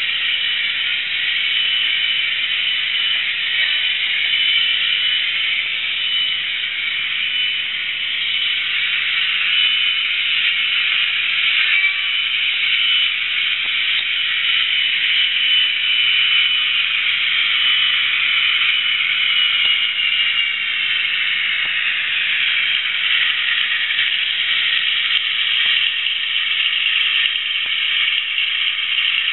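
Sound decoder in an OO-gauge Hornby Class 42 Warship playing its diesel-hydraulic engine sound through the model's small speaker: a steady, thin engine note running on, which slides down in pitch about two-thirds of the way through.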